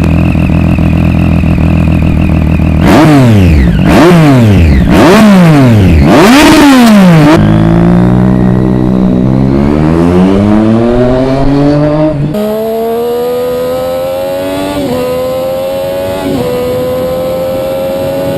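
Triumph Street Triple's three-cylinder engine idling, blipped three times, then accelerating hard with its pitch rising through several upshifts.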